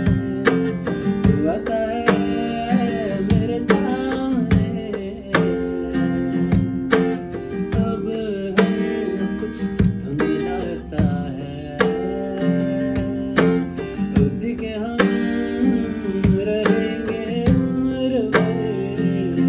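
Acoustic guitar strummed in a steady rhythm, with a singing voice carrying a melody over it at times.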